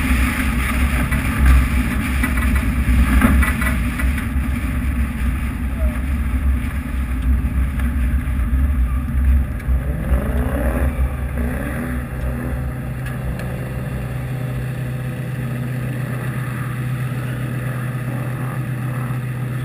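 Car engine and wind rush from a camera mounted on the outside of a car at speed. About halfway through, the car slows, with a few short pitch sweeps from the engine, and settles to a steady idle as it stops.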